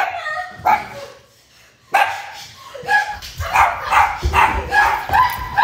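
A dog barking and yipping in short repeated calls, breaking off for about a second near the start, then barking faster and more steadily toward the end.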